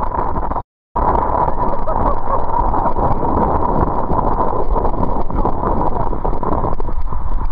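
Wind buffeting the microphone and water rushing along the hulls of a Hobie 20 catamaran sailing fast in a stiff breeze, a loud, steady roar. It breaks off for a moment just before a second in.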